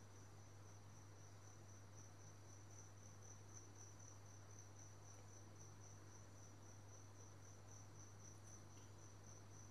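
Faint cricket chirping, an unbroken run of rapid, even pulses at one high pitch, over a low steady electrical hum.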